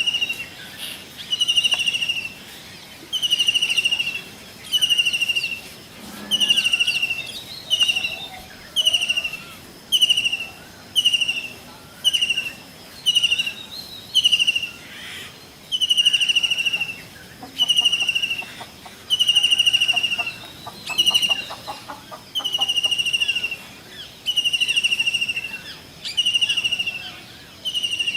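A kingfisher calling over and over: a shrill whistled note that falls slightly in pitch, repeated about once a second, with some notes held longer than others.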